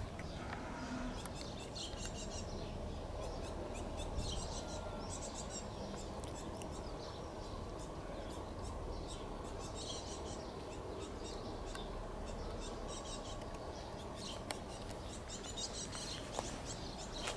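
Outdoor ambience: birds chirping in short spells every few seconds over a steady low background noise.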